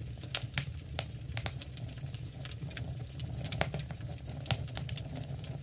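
Fire burning steadily with a low rumble and frequent sharp, irregular crackles and pops from the burning wood.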